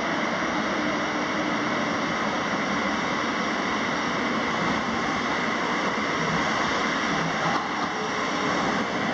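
TriMet MAX light-rail train approaching through a tunnel and pulling into an underground station, a loud, steady rushing noise with no let-up.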